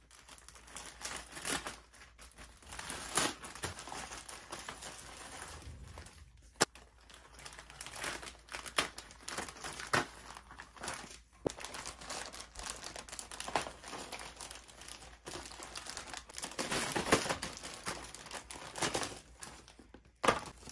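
Plastic treat packaging crinkling and rustling as it is handled and opened by hand, in irregular crackles with a few sharper snaps.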